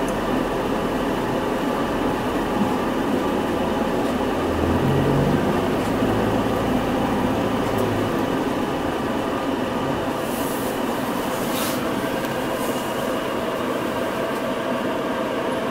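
Inside a Hino Rainbow non-step city bus: the diesel engine and drivetrain run with a steady hum and several steady tones, with a low tone growing stronger about four to eight seconds in. A few short hisses come about ten to thirteen seconds in.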